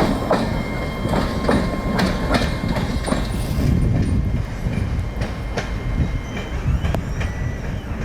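Canadian National train rolling past: a low rumble of railcars with wheels clicking over rail joints, two to three clicks a second at first and sparser in the second half, with faint thin steady wheel tones.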